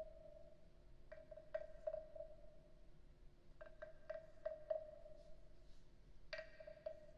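Wooden frog guiro played with its stick: three croaking rasps, each about a second and a half long and starting with a sharp wooden tap.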